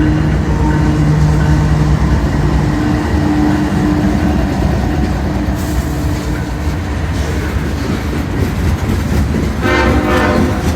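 Union Pacific locomotive horn sounding over the rumble and wheel clatter of a passing train: steady horn tones for the first few seconds, then a short horn blast near the end.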